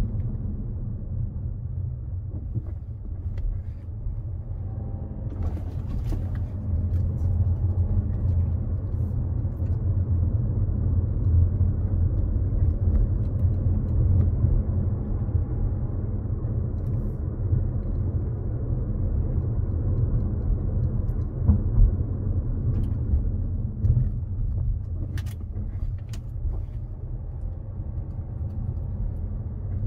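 Steady low rumble of a car's engine and tyres on a paved road, heard from inside the cabin while driving, with a few faint clicks now and then.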